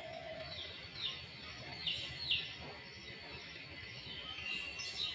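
Small birds chirping: several short chirps, each falling in pitch, about one every second or so, over a steady background hiss.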